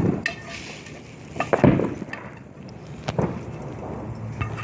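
A few scattered thumps and knocks over a low background rumble, the loudest about a second and a half in.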